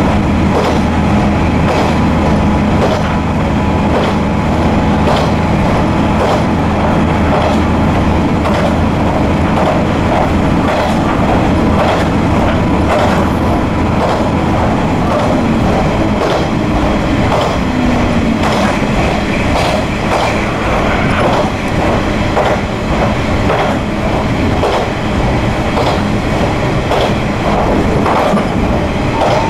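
Kanto Railway diesel railcar heard from inside the driver's cab, running along the line. The engine's steady low drone is strong for the first eight seconds or so and then drops back, while the wheels keep clacking over the rail joints at a regular beat.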